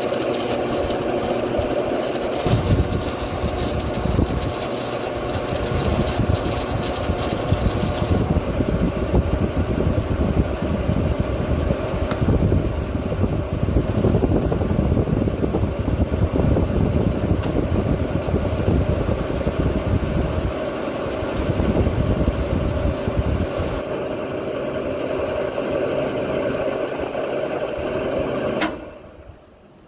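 Lincoln Idealarc 250 transformer welder running: a steady transformer hum with its cooling fan, plus arc crackle and hiss while welding under load for about the first eight seconds. After that the welder idles with no load, humming steadily, until the sound stops abruptly with a click near the end.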